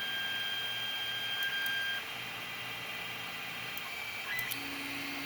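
Creality Ender-3 3D printer running a test print: its motors whine in steady tones that change pitch as the moves change, about two seconds in and again near the end, with a few faint ticks.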